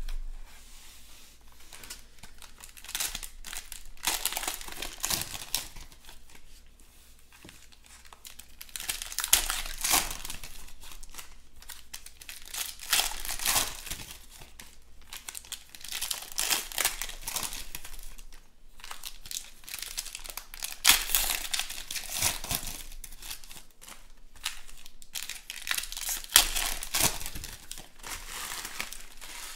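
Foil wrappers of 2020 Panini Chronicles Baseball card packs being torn open and crumpled by hand, in repeated bouts of crinkling every few seconds.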